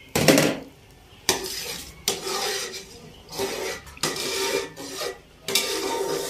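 A long metal ladle stirring a large metal cooking pot of milk and jaggery syrup, scraping against the pot with each stroke, about six strokes with a short metallic ring on each.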